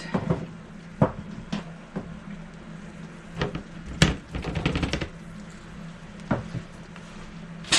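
A roasting pan being handled as the roast comes out of the oven: scattered knocks and clatters of cookware, the loudest about four seconds in, then a quick run of small rattling clicks. A steady low hum runs underneath.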